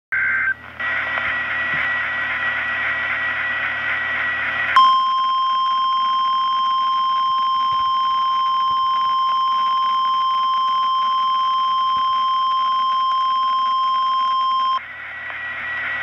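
Weather radio emergency alert: a few seconds of harsh, buzzing digital data tones (the SAME header), then about 5 s in the steady 1050 Hz warning alarm tone, held for ten seconds and cut off suddenly, announcing a National Weather Service warning.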